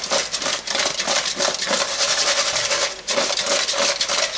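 Fried potato chunks tumbling and scraping around an oval enamel roasting pan as it is shaken and tilted by hand to coat them in spices: a dense, continuous rattle of many small knocks and scrapes.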